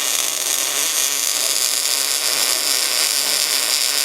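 MIG welder arc crackling and hissing steadily while a weld bead is run on metal.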